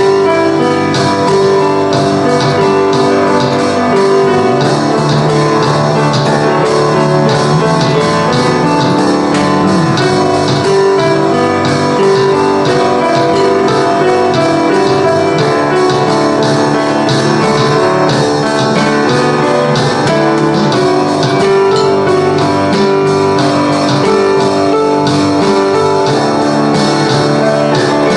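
Instrumental rock band of piano, bass guitar and drum kit playing together at a steady loud level, with sustained piano chords over a regular drum beat.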